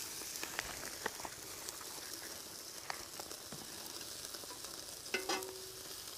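Marinated jerk crawfish sizzling steadily as they cook over the heat, with scattered small crackles and pops.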